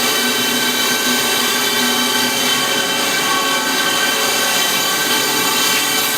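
Cincinnati Arrow 1000 CNC vertical machining center running a demonstration program: the spindle turning at about 2,000 RPM while the table traverses. A steady whine made of many tones.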